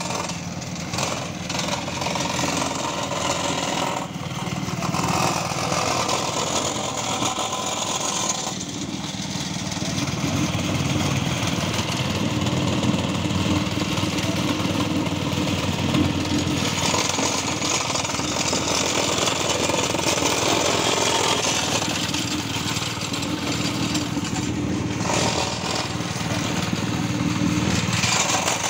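Petrol-engined vibratory plate compactor running steadily while it is pushed over loose sand to compact it. Its small single-cylinder engine drives the vibrating plate.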